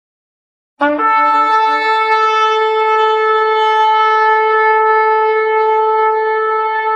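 Shofar blown in one long, steady note, starting suddenly about a second in; a lower, rougher tone sounds under it for the first moment before the note settles.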